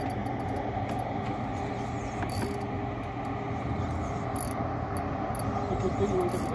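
A spinning reel being cranked, its gears whirring steadily as line is wound in, over a steady low mechanical hum.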